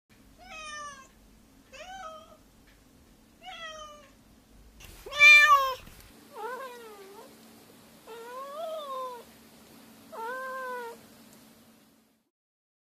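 Domestic cat meowing seven times, each meow rising and falling in pitch and spaced about one and a half to two seconds apart; the fourth meow, about five seconds in, is much louder and harsher than the rest.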